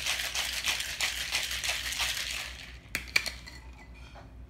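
Ice rattling fast inside a cocktail shaker being shaken hard, stopping about two and a half seconds in. Then two sharp knocks as the shaker tin is broken apart from its mixing glass.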